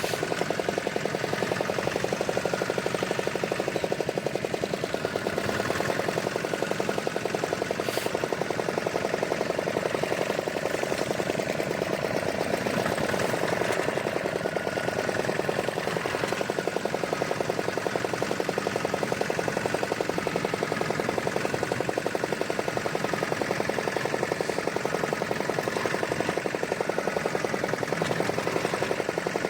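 Fishing boat's engine running steadily with a rapid, even knocking beat, with one sharp click about eight seconds in.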